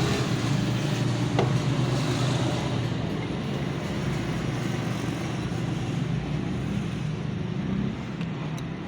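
Steady vehicle noise, a running engine with traffic around it, with one brief sharp click about a second and a half in.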